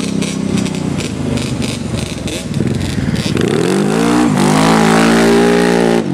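ATV engine running, then revving up about three seconds in: the pitch climbs, dips briefly and climbs again to a steady high note, then cuts off suddenly near the end.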